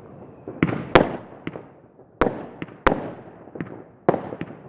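New Year's fireworks going off: about nine sharp bangs at uneven intervals, each trailing off in echo. The loudest comes about a second in.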